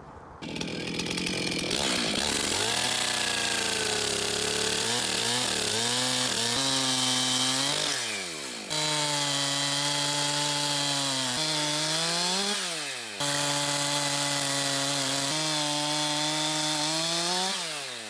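Stihl two-stroke chainsaw running at high revs and cutting slices from a wood burl. The engine pitch sags and recovers as the chain bites into the wood, and the sound drops away briefly twice before coming back.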